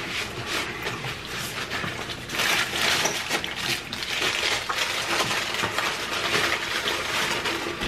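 Close-miked eating: tacos being chewed, mixed with paper taco wrappers and napkins crinkling. It is a dense crackle of small crunches and rustles, busiest about a third of the way in.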